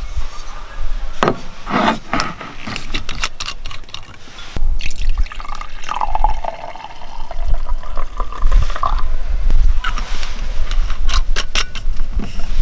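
Wine being poured into a glass, running for a few seconds around the middle, with sharp clicks and knocks before and after.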